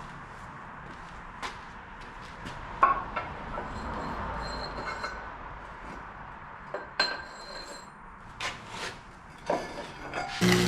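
Scattered metal clinks and knocks from steel being handled at the welding job, with two sharper clanks. Right at the end a loud crackling buzz with a low hum starts, as the welding arc strikes up.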